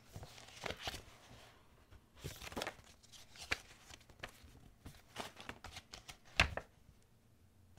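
Paper sticker sheets and stickers being handled and shuffled by hand: quiet rustles, slides and light taps of paper, with one sharper knock about six and a half seconds in.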